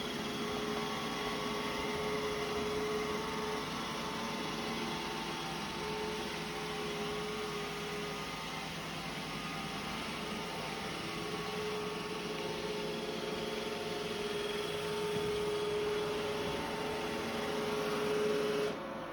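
Roomba robot vacuum running steadily as it cleans: a continuous motor and brush whir with a hum whose pitch shifts now and then. The sound drops away briefly near the end.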